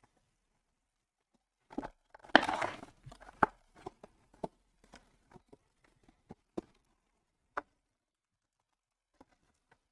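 Panini Select football mega box being torn open by hand: a loud stretch of tearing about two seconds in. Scattered taps and crinkles follow as the packs in their wrappers are pulled out and set down.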